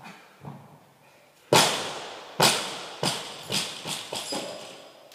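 Loaded barbell with bumper plates dropped from overhead onto a rubber gym floor: one heavy crash about a second and a half in, then five bounces, each quicker and quieter, as it settles.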